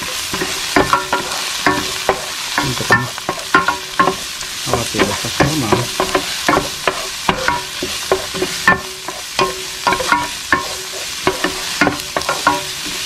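Diced onion and garlic sizzling in oil in a frying pan while a wooden spoon stirs them, knocking and scraping against the pan in quick, irregular strokes.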